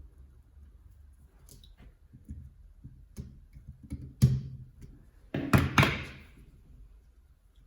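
Scattered clicks and knocks of hard parts being handled, with a sharp knock about four seconds in and a cluster of louder knocks about a second and a half later.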